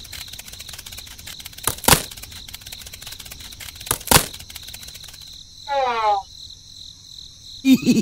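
Insects chirping steadily, with two sharp knocks about two seconds apart and a short sliding pitched sound a little later.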